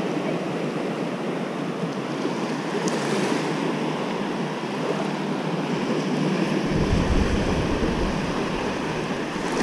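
Surf washing onto the beach, a steady hiss of small breaking waves. Wind buffets the microphone with a low rumble for a couple of seconds near the end.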